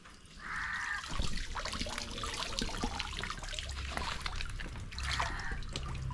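Water splashing and trickling as a long woven cane fish trap is hauled out of shallow canal water and dragged along, water streaming off it, with splashes from wading legs.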